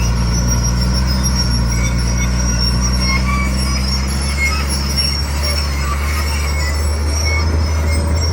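Komatsu D41 crawler bulldozer running steadily under its diesel engine, with many short, high metallic squeals from its steel tracks.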